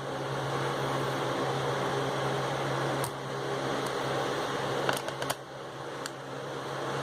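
Steady fan-like hum and hiss with a few light clicks, typical of the opened plastic speaker case and its parts being handled.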